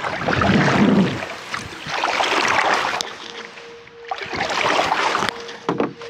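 Gusty wind rushing over the microphone, swelling and dying away every second or two, from a west wind of force 4 to 5 that hampers the recording. A steady held tone comes in about three seconds in.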